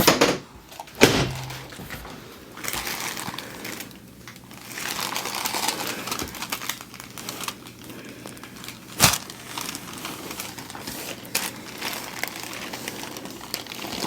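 Rustling and crinkling as a patient shifts on a chiropractic treatment table, with a few sharp knocks; the loudest come about a second in and about nine seconds in.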